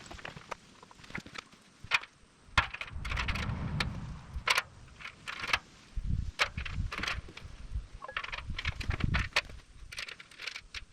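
Irregular metallic clinks, clicks and knocks of bolts, nuts and spring washers being handled and fitted to the concrete mixer's steel barrel, with some duller handling noise in between.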